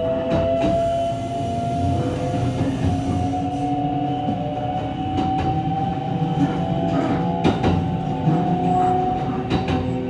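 Mitsubishi GTO VVVF inverter and traction motors of a Kintetsu 23000-series Ise-Shima Liner motor car, the unit with the altered modulation pattern, whining as the train accelerates away from a stop; several tones rise slowly in pitch, over a rumble with the occasional click of wheels over rail joints.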